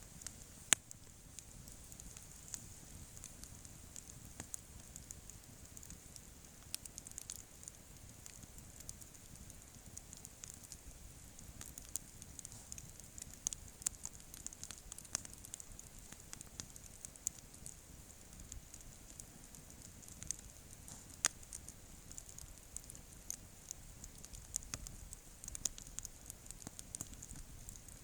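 Wood campfire burning: a soft steady hiss with irregular sharp crackles and pops, a few of them louder.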